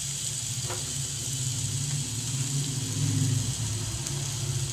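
Masala frying in oil in a kadhai, a steady soft sizzle, while garam masala powder is sprinkled in. Under it runs a steady low hum that is louder than the sizzle.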